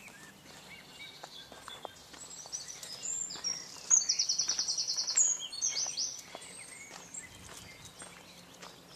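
Songbirds singing in the countryside: scattered high chirps, with one bird giving a loud, rapid trill of about a second and a half starting about four seconds in.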